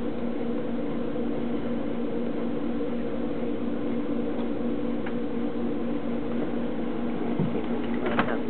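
Steady low hum, with a short squeak about eight seconds in.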